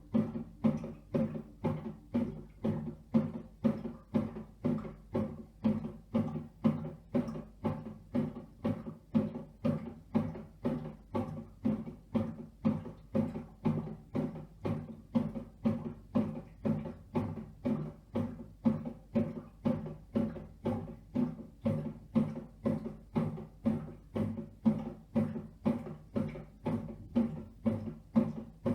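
Redmond RBM 1908 bread maker running its kneading motor: a low hum with a regular knock about twice a second as the paddle turns.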